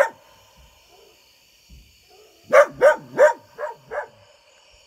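A dog barking five times in quick succession about two and a half seconds in, the last two quieter, with crickets chirring steadily in the background.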